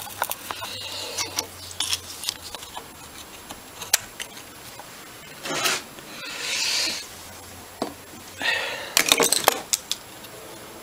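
Small metal parts and tools clicking, knocking and scraping against an old Amal monoblock carburettor held in a bench vice as it is dismantled, with three short bursts of scraping in the second half, the last ending in a quick run of clicks.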